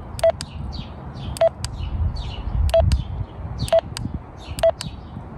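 Keypad beeps of an NXGKET FRS walkie-talkie as its menu button is pressed repeatedly to step through the settings. Five short, same-pitched beeps, each with a button click, come about a second apart.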